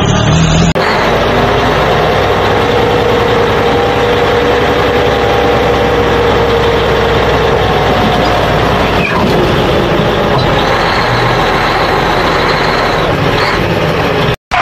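Large truck engine running steadily, starting about a second in and cutting off abruptly near the end.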